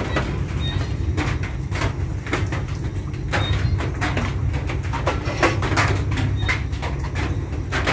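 Metal spatula scraping and clinking against a wok on a gas stove, in irregular strokes a few times a second, over a steady low rumble.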